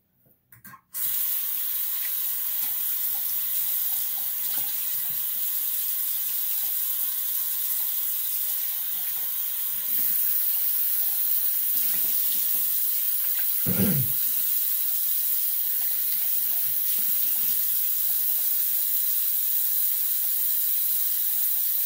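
Bathroom sink tap running steadily, turned on about a second in and a little louder from about halfway, with water splashing into the basin. There is a brief low thump about two-thirds of the way through.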